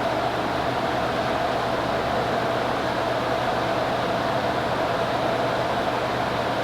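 Vintage ceiling fans, a Toastmaster and a Moss Caribbean Breeze, running steadily: an even whir of moving air with a constant mid-pitched tone and a low motor hum.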